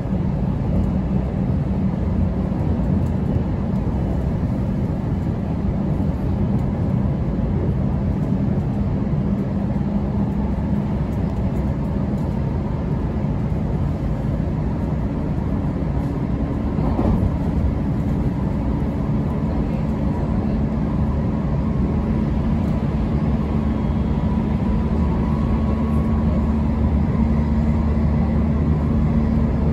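Steady running noise of an electric commuter train heard from inside the carriage: wheels rumbling on the rails with a low motor hum that grows stronger past the halfway point. There is a single brief knock about 17 seconds in.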